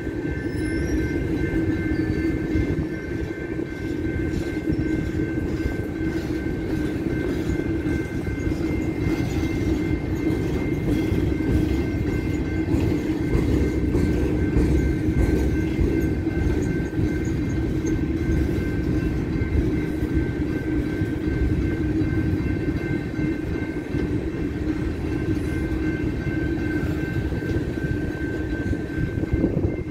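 Coal cars of a slow-moving freight train rolling past: a steady low rumble of steel wheels on rail, with a steady high-pitched squeal over it.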